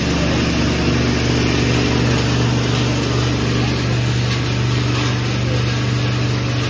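Plastic scrap washing machine running steadily, a continuous low motor hum over a broad even noise.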